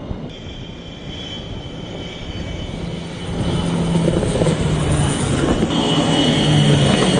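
Aircraft engine noise on a carrier flight deck that swells from about halfway through as an E-2 Hawkeye's twin turboprops pass low over the deck, with a steady low propeller hum.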